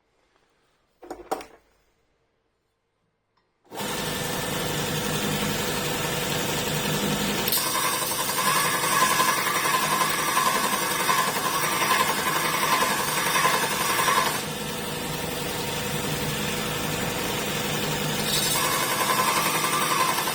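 Robert Sorby ProEdge belt sharpener with a 120-grit belt, started a few seconds in and then running steadily. From about seven seconds in to about fourteen, and again near the end, a harsher grinding hiss joins it as a drill bit is held against the belt to take more off one primary facet, evening up the two cutting edges.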